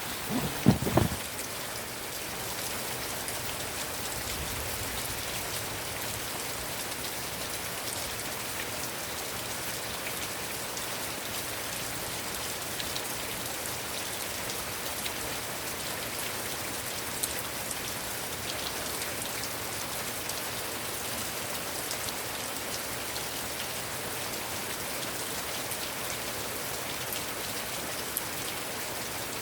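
Heavy rain falling steadily, an even hiss with scattered drops ticking. A brief cluster of low thumps comes about a second in.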